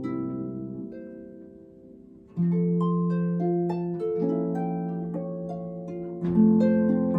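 Solo pedal harp playing. A phrase of plucked notes rings away and fades; then a strong low chord about two and a half seconds in starts a new phrase of notes over ringing bass strings, and another strong chord comes near the end.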